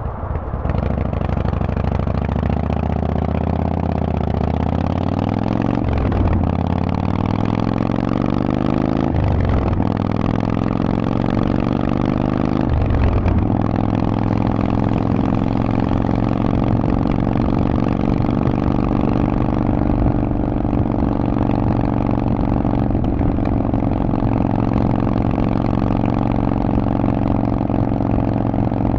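Harley-Davidson Forty-Eight's air-cooled 1200 cc V-twin running through a Vance & Hines aftermarket exhaust. It pulls away and accelerates, rising in pitch through three upshifts, each a short break in the engine note. For the second half it holds a steady cruising note.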